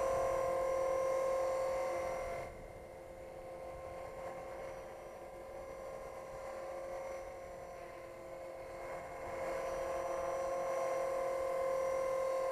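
Tarot 450 electric RC helicopter in flight: a steady high-pitched whine from its motor and spinning rotors. It drops off sharply about two seconds in and grows louder again after about nine seconds.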